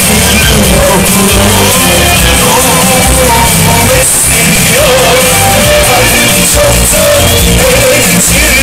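Loud live band music with singing over a heavy bass, amplified through a concert sound system.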